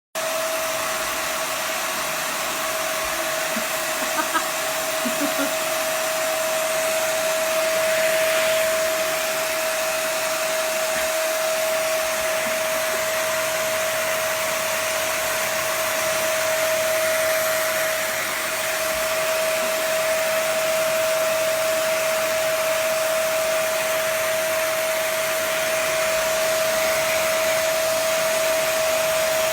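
Vacuum cleaner motor running steadily: a constant high whine over rushing air, with a few brief clicks about four seconds in.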